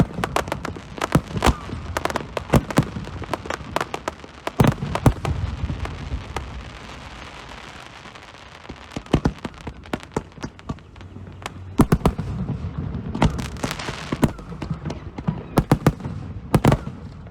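Aerial fireworks bursting: many sharp bangs in quick succession, thinning out a few seconds in to a lull of hiss and scattered pops, then picking up again with a burst of crackling and more bangs near the end.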